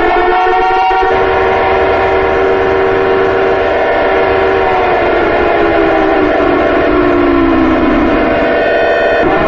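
Civil defense warning siren sounding a chord of several tones: it finishes winding up about a second in, holds steady for several seconds, then winds down in pitch until near the end, when it breaks off and starts rising again. A steady low rumble runs under it.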